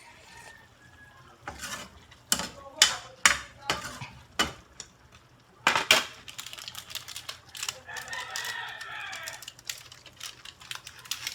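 A run of sharp knocks and clinks, a cooking utensil striking the pan. About eight seconds in, a rooster crows once, a drawn-out call of a second and a half.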